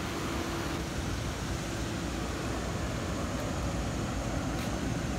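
Steady low rumbling background noise with a hiss on top and no distinct events.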